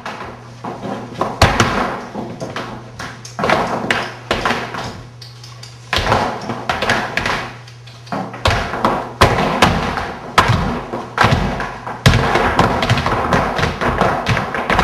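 Flamenco shoes stamping and tapping on a wooden studio floor: irregular footwork strikes from several dancers at once, sparser in the middle and denser near the end.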